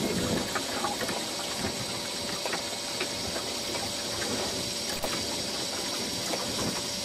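A steady motor hum with a hiss, with faint scattered clicks over it.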